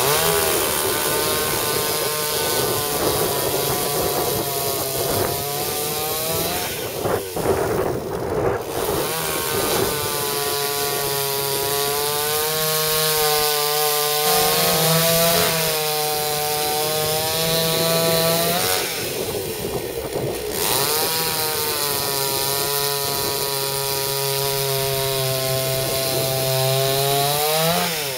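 Petrol chainsaw cutting through a log, its two-stroke engine note sagging and wavering under load through the cuts and rising sharply near the end as the chain comes free. The sound breaks briefly about 7 and 19 seconds in.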